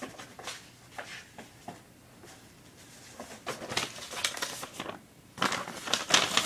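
A sheet of paper being picked up and handled, with light rustling and taps in short clusters, busiest about three and a half seconds in and again near the end.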